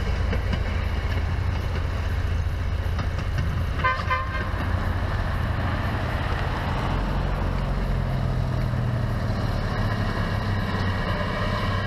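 A short, buzzy toot from a railroad speeder's horn about four seconds in, over a steady low rumble. A car passes on the road around the middle, briefly raising the rumble and road noise.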